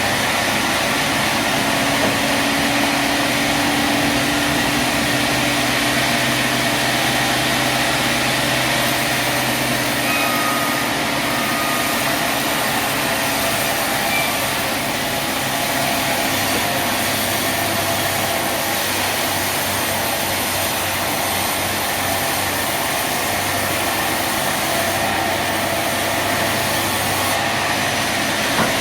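Sawmill machinery running steadily, a continuous mechanical noise with a few steady tones and no pauses.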